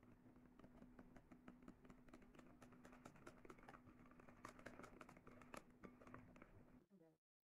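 Wire whisk beating carrot cake batter in a glass bowl: faint, quick, irregular clicks of the wires against the glass. A low steady hum runs underneath and stops near the end.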